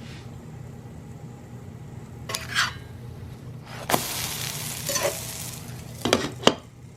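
Muufo flatbread dough cooking on a hot pan: a short sizzle about four seconds in, with a few scraping sounds before it and two sharp clicks near the end, over a steady low hum.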